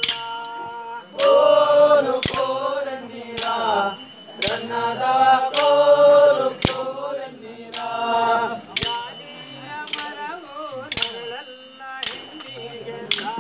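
Kolata stick dance: wooden sticks clacking together in a steady beat about once a second, under voices singing a rhythmic folk chant.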